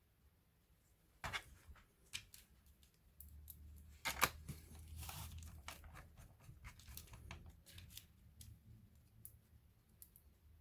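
Small clicks and crinkling, rustling handling noises, with louder clicks about a second in and about four seconds in, as of hands working with plastic laptop parts or packaging.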